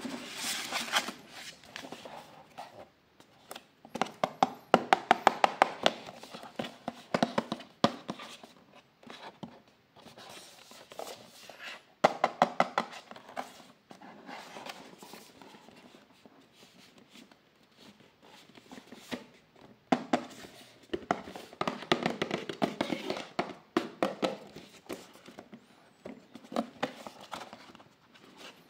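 Hands handling and tapping a cardboard toy box, in bursts of rapid clicks and taps with quieter pauses between.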